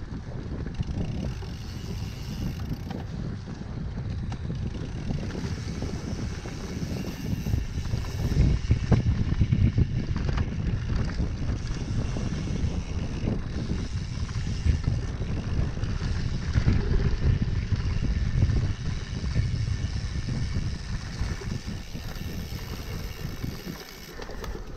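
Wind buffeting the microphone of a camera on a moving cyclocross bike, over the rumble of tyres rolling on a dirt trail, with occasional knocks as the bike goes over bumps.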